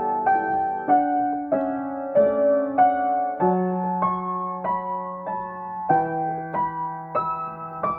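Acoustic piano playing a slow, gentle improvisation. Notes are struck about every half second and ring on over held bass notes, which change about every two to three seconds.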